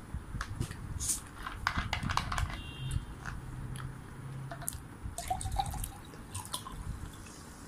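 A plastic Coca-Cola bottle being handled, with a run of sharp clicks and crackles and small liquid sounds; a low hum sounds for about a second and a half in the middle.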